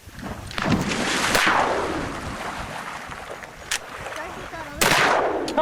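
A rushing swell of wind-like noise that fades, a faint sharp crack, then a loud shotgun shot near the end that rings off briefly.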